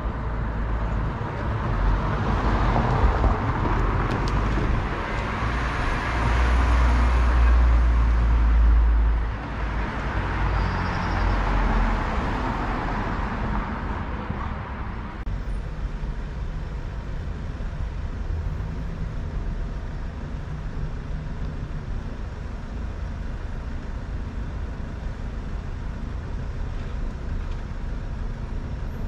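Road traffic at a street junction: motor vehicles driving past, loudest about seven to nine seconds in with a deep rumble. After about fifteen seconds this settles into a quieter steady hum of traffic.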